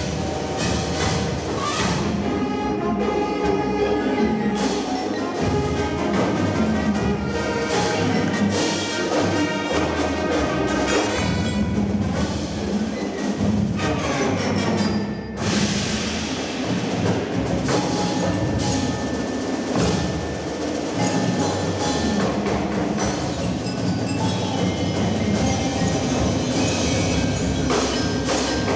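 Marching band playing, with many sharp struck notes from mallet percussion such as marimba, xylophone and bells. The loudness dips briefly about halfway through.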